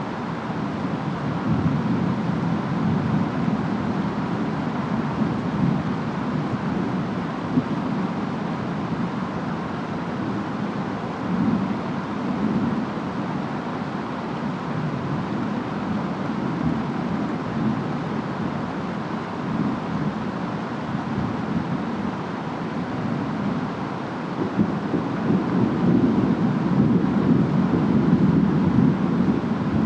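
Steady rain and wind with low rumbles of distant thunder that swell a few times, loudest near the end.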